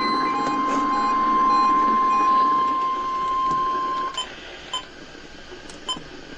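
NOAA Weather Radio warning alarm tone sounding for a weekly test: one steady, high single tone over radio hiss, cut off about four seconds in, followed by a few short faint blips.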